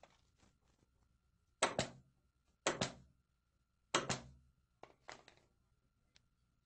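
Pneumatic staple gun firing three times into a wooden door frame, a little over a second apart, each shot a sharp double crack as staples drive a Velcro strip into the wood. A couple of fainter clicks follow near the end.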